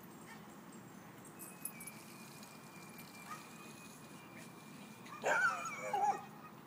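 A small dog yapping in two quick bursts about five seconds in.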